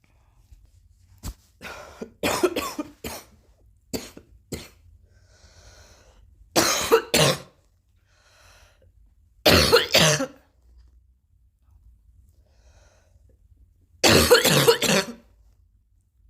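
Repeated coughing in bouts. A run of short coughs in the first few seconds, then three louder bouts of two or three coughs each, a few seconds apart, with faint breathing in between.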